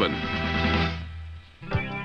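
Background film music: a held chord fades out about one and a half seconds in, and a new music cue with plucked guitar-like notes starts right after.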